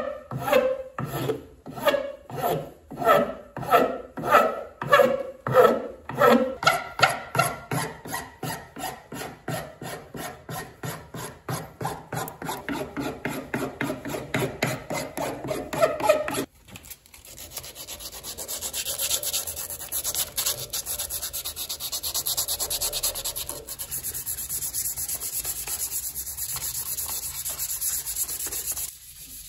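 A hand file rasping across the knob of an ash axe handle in steady strokes, about two a second and quickening. A little past halfway this gives way to a steady hiss of sandpaper rubbed over the knob by hand.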